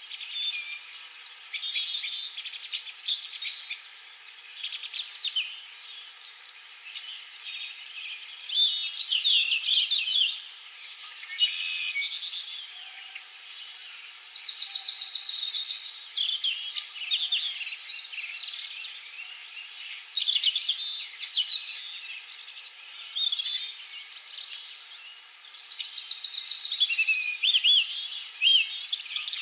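A chorus of songbirds chirping and singing in overlapping short, sweeping calls, with a fast high trill about halfway through and again near the end.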